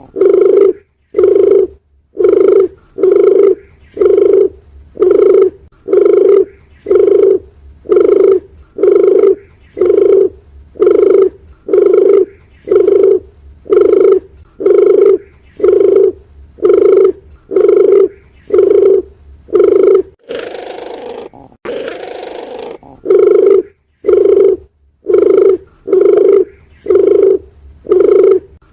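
Dove cooing as a lure call: short, low coos repeated about once a second, broken once about twenty seconds in by a longer harsh, noisy call.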